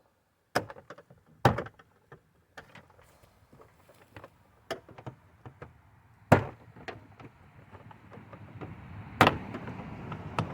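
Plastic interior door trim panel on a pickup's rear door being pried off: a string of sharp snaps and knocks as the retaining clips pop loose, the loudest about a second and a half, six and nine seconds in, with rustling of the panel being handled toward the end.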